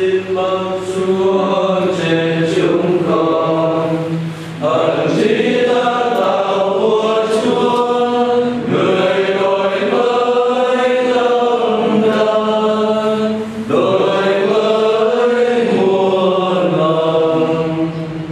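A group of voices singing a chant-like song in long, sustained phrases, with short breaths between phrases about four and a half seconds in and again near fourteen seconds.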